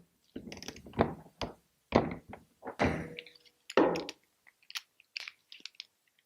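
A series of hard thunks and clunks, about one a second, then lighter clicks, as the container valve installation tool and torque wrench are fitted and turned to tighten the RSV container valve into the IBC's bung.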